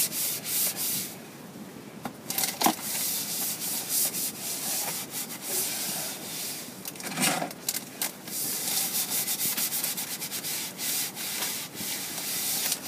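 A damp sponge scrubbed back and forth over dried joint compound on drywall, smoothing the patch without sanding: a rhythmic rubbing, with a short lull about a second in and quicker strokes near the end.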